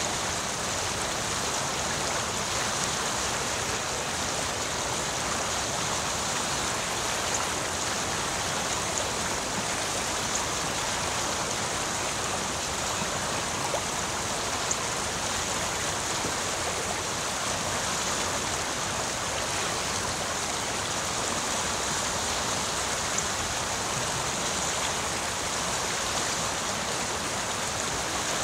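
Shallow rocky creek running steadily: an even, continuous babble of water, with a few brief ticks standing out.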